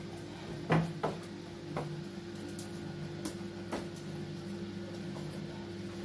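Scattered sharp clicks and taps of a dog's claws on a tiled floor as it moves about searching, the loudest about a second in, over a steady low hum.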